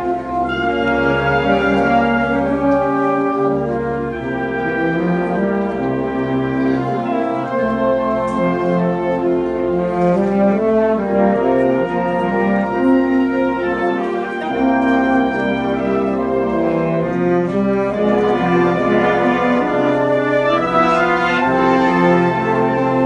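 A southern Italian concert wind band playing slow processional music: brass chords held and changing every second or two over long, sustained low bass notes.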